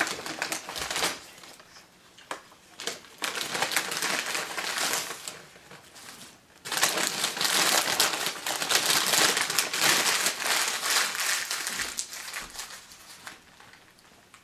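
Paper takeout bag and food wrappers crinkling as hands rummage through them, in bursts: briefly at the start, again a few seconds in, then a longer stretch that fades out near the end.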